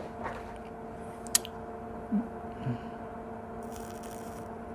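Faint bench handling noises over a steady electrical hum: one sharp click about a second in, a couple of soft low knocks, and a brief hiss near the end.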